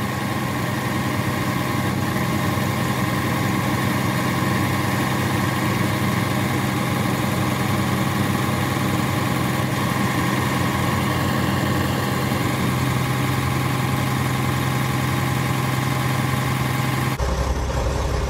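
Cummins ISX15 inline-six diesel engine idling steadily at about 650 rpm while the Insite test commands the fuel rail to pressurize; the rail is slow to build pressure, which the mechanic suspects comes from the aftermarket injectors. Near the end the sound changes abruptly to a deeper, heavier tone.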